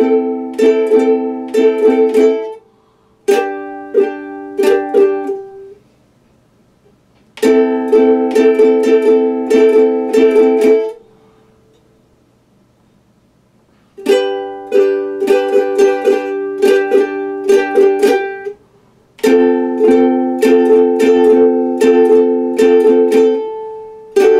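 Mandolin strummed in quick chord strokes, in five short phrases broken by pauses of one to three seconds, as the player works out a tune moving between A minor and G.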